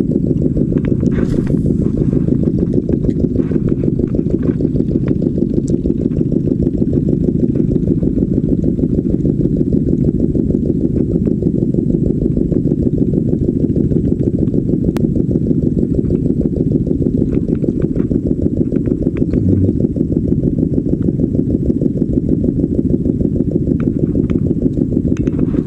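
A small engine running steadily at an even speed: a constant low rumble that does not change.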